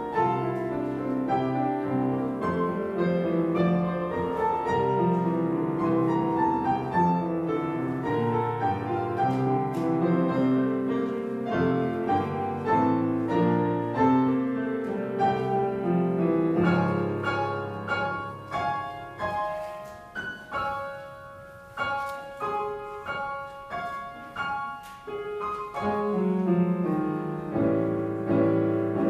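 Piano playing a slow, classical-style piece with struck chords and melody notes that ring out and fade. About two-thirds of the way through it thins to sparser, quieter single notes, then fuller chords return near the end.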